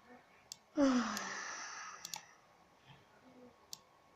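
A girl's breathy sigh about a second in, falling in pitch and fading out, with a few sharp clicks around it.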